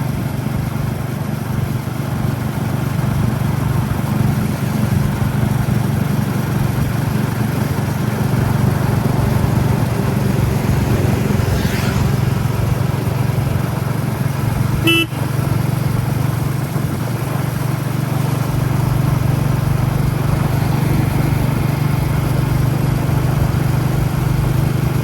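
Royal Enfield Classic 350's single-cylinder engine thumping steadily under way, heard from the rider's helmet. About fifteen seconds in, a short horn toot cuts through.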